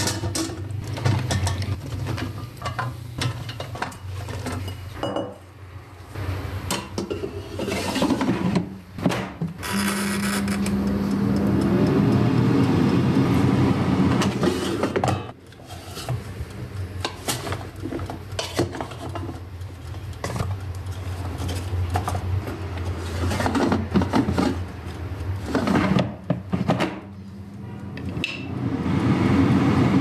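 Eggplant slices dropped into a plastic air fryer basket and turned with a wooden spatula: irregular knocks, rubbing and scraping. A steady rushing noise comes in about a third of the way through and cuts off suddenly about halfway.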